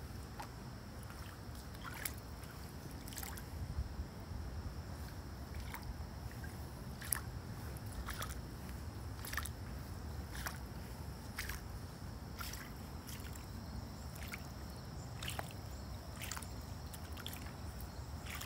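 Footsteps in leather shoes splashing through about an inch of standing water on a flooded flat roof, roughly one step a second, under a low steady rumble.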